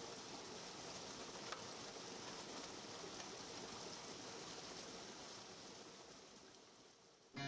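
Faint, steady outdoor background rushing, like running water, with one light click about a second and a half in; it fades out near the end.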